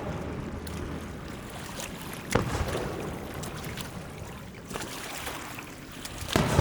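Fireworks shells bursting overhead, each bang followed by a long rolling rumble and echo, with light crackling between bursts. One sharp burst comes a little over two seconds in, a weaker one later, and another loud one just before the end.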